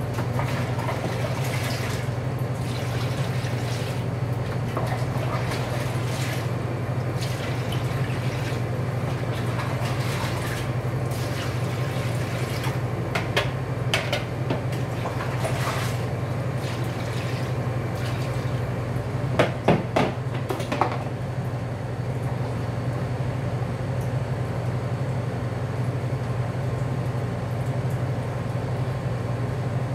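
Marinade being scooped with a plastic scoop and poured over beef ribs in steel pans: scattered splashes, drips and knocks of the scoop, with a louder cluster about two-thirds of the way in, then the pouring stops. A steady low hum runs underneath throughout.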